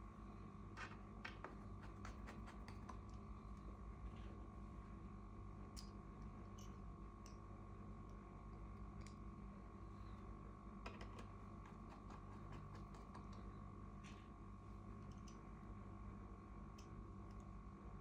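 Faint, irregular small clicks and ticks of a precision screwdriver working the tiny screws of a MacBook Air's aluminium bottom case, over a steady faint hum.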